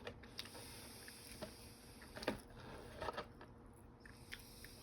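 Faint mouth noises of someone chewing fries, with a few short, sharp clicks, the loudest a little over two seconds in and again about three seconds in.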